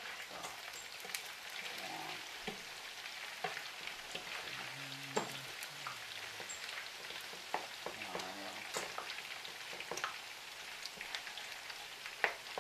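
Meatballs frying in a hot pan: a steady sizzle with scattered sharp pops and crackles.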